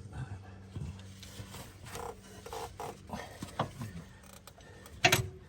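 Metal hardware creaking and clicking as it is worked by hand, with a sharp knock about five seconds in.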